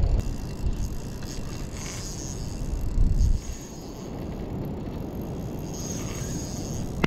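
Daiwa Caldia 3000 spinning reel's drag slipping as a hard-running flathead pulls line off, with wind buffeting the microphone. The wind is strongest at the start and again around three seconds in.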